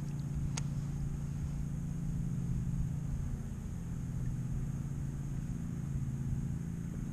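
Steady low engine hum. A single sharp click comes about half a second in.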